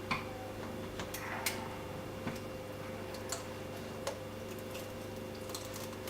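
Sea bass being trimmed with a cutting tool: a handful of short, sharp snips and clicks, about six in the first four seconds, then only a steady low hum.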